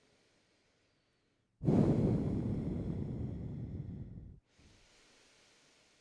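A woman breathing deeply and steadily into a close headset microphone in connected, circular breathing. A long, loud breath starts about a second and a half in and fades over nearly three seconds, followed by a quieter breath.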